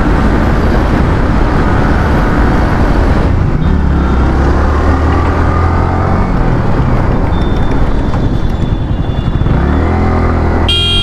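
Yamaha R15 single-cylinder motorcycle being ridden in traffic, with wind noise on the rider's microphone over the engine. The engine note rises a few seconds in, falls back, and climbs again near the end, where a vehicle horn sounds briefly.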